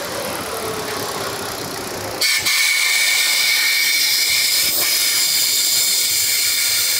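Compressed air hissing into a homemade pressurised fluid feeder that pushes fresh automatic transmission fluid into the gearbox, over a running engine. The hiss starts suddenly about two seconds in and then holds steady, with a thin steady whistle in it.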